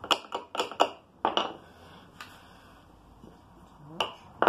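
Light mallet taps on the back of a steel plane iron in a handmade infill mitre plane, each a sharp click with a short metallic ring: a quick run of four or five in the first second and a half, then two more near the end. The taps are setting the blade's depth of cut.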